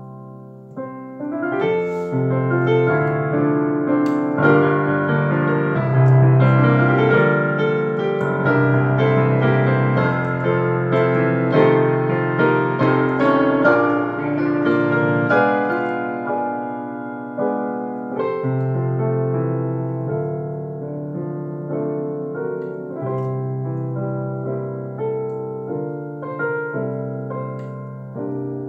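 Solo digital piano playing a hymn arrangement in chords with a melody over a moving bass. It plays fuller and louder through the first half and grows softer from about halfway on.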